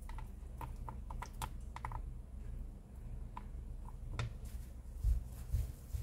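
Light, irregular clicks and ticks of mixed nuts (cashews, almonds, walnuts) being scattered by hand onto yogurt spread on a parchment-lined tray, with a few soft low thumps past the middle and a steady low hum underneath.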